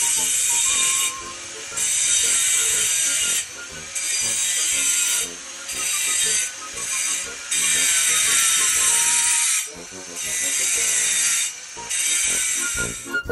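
Handheld angle grinder grinding a granite slab into a keystone, running loud and high-pitched with about six short breaks where the cut eases off.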